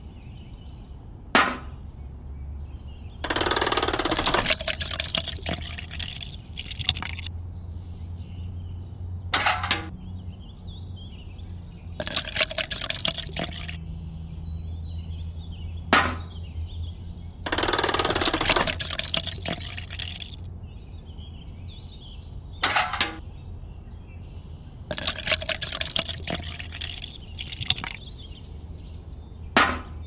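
Small electric motor of a miniature homemade concrete mixer running with a steady low hum as its drum turns. Wet cement mix is poured and sloshes in repeated bursts of one to three seconds, with a few sharp knocks in between.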